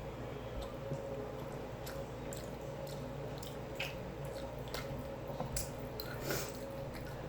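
A person chewing food, with a few faint wet mouth clicks now and then, over a steady low hum.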